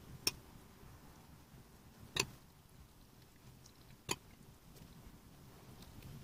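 A metal teaspoon clinking against a ceramic bowl while scooping stuffing: three sharp clicks about two seconds apart.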